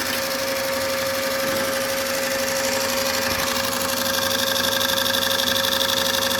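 RCA TP-66 16mm film projector running forward with no film loaded: a steady motor hum under the fast, even clatter of the film-transport mechanism.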